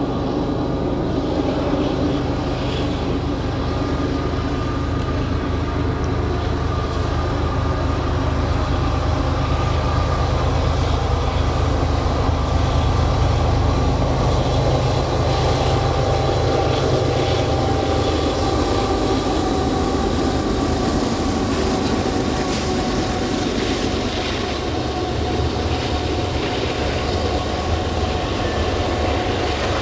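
Union Pacific westbound intermodal train passing, led by three diesel locomotives running under power. The low engine sound eases about two-thirds of the way through as the train's cars keep rolling by.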